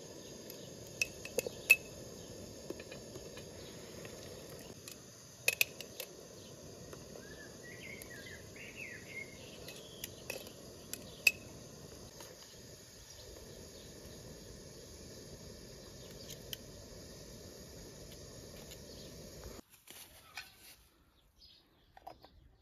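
Gas burner on a gas cylinder running steadily under a pot of water, with metal tongs clinking sharply against the pot and jars several times. Insects buzz high in the background and a bird chirps briefly. The steady sound cuts off suddenly near the end.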